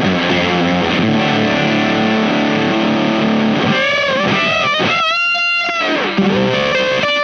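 Single-coil electric guitar (Warmoth S-style) played through a Space Sounds Galactic Fuzz pedal, thick and sustaining: held fuzz chords, then bent, wavering lead notes about four seconds in and a high sustained note a second later.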